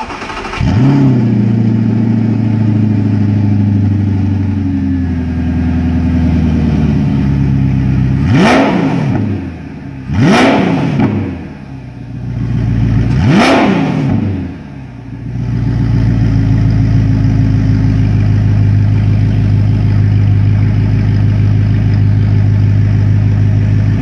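Audi R8's 4.2-litre V8 breathing through an ARMYTRIX valvetronic exhaust: it starts and flares right away, then holds a fast idle that slowly drops. Three short, sharp blips of the throttle follow, each rising and falling quickly, and the engine settles back to a steady, deep idle.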